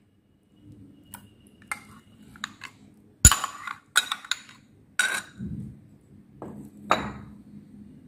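A plastic spoon clinking and knocking against glass and ceramic dishes as mayonnaise is spooned into a bowl of cream. The knocks are sharp and irregular, about ten of them, with the loudest about three seconds in.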